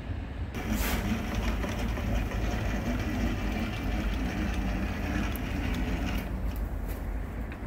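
Large manual lathe running, slowly turning a CAT 777 suspension strut barrel in its steady rest while it is dialed in. There is a steady low hum, with a brighter rattling layer that drops away about six seconds in, and a few sharp clicks near the end.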